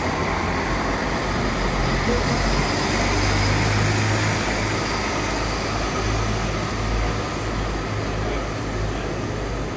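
Diesel engines of a Class 170 Turbostar multiple unit running with a steady low drone. It swells a little around the middle and eases off toward the end.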